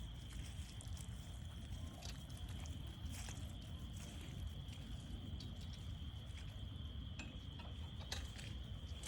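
Frog chorus: many frogs calling together as one steady high-pitched trill, with a few scattered footsteps on the trail.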